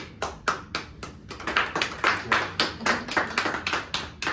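A small group of people clapping, with the irregular claps growing denser about a second and a half in.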